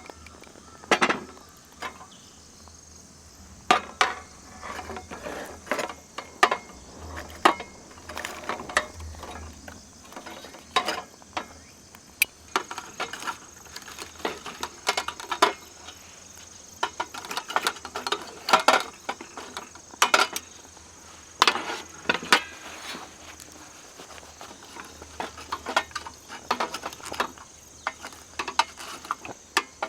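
Irregular clinks, clicks and knocks of metal camp gear being handled, over a steady high chirring of crickets.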